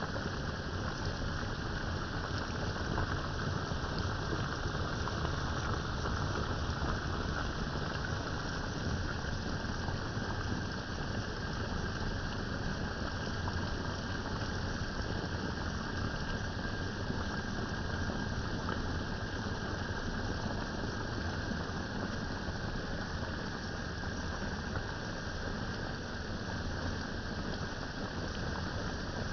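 A pot of rice noodles, cabbage and carrots cooking on the stove, giving a steady simmering hiss.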